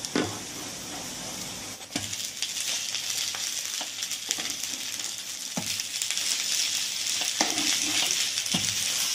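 Shredded radish-and-egg pancakes sizzling in oil on an electric griddle, the sizzle growing louder as they are flipped over. A few short knocks from the knife turning them.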